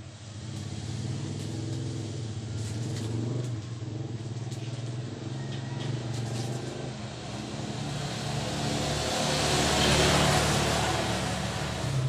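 A motor vehicle's engine running steadily, with a rush of noise that builds to its loudest about ten seconds in and then eases, like a vehicle passing. A few faint clicks in the first few seconds.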